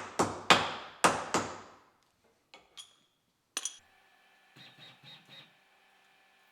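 Metal pieces clanking together, five sharp ringing knocks in quick succession within the first second and a half, then a few lighter clicks.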